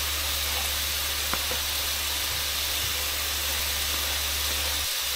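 Sliced pork shoulder and smoked bacon sizzling steadily in a frying pan, a constant even hiss, over a low steady hum.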